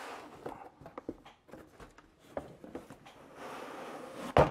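Cardboard box and packing rustling and scraping as a boxed appliance is slid out by hand, with scattered small clicks and a longer scraping rustle after about three seconds. A single sharp knock near the end is the loudest sound.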